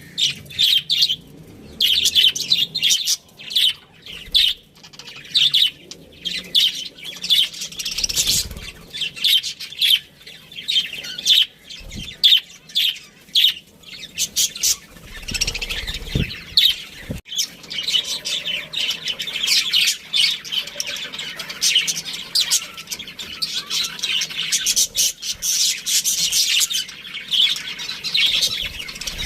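Budgerigars chattering: a dense stream of rapid, overlapping high chirps and warbles, with a few dull low thumps and one sharp click partway through.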